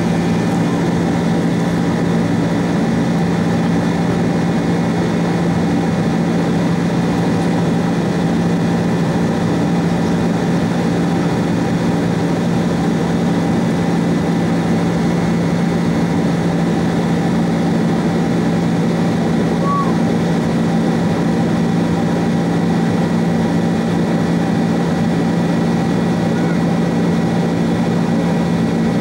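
Cabin noise of a Boeing 767-300ER in its climb after takeoff, heard beside the wing engine: the twin turbofans at climb power give a steady low drone with a few steady higher tones above it.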